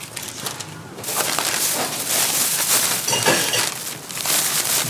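Metal spatula and presses scraping and clinking on a flat steel griddle where hotteok cook, over a steady hiss that builds about a second in. A few short metallic rings come near the middle.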